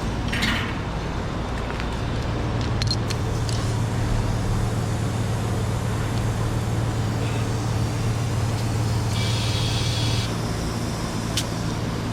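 Car tire being inflated from a shop air line, with a steady low hum throughout. A short hiss of air comes about nine seconds in.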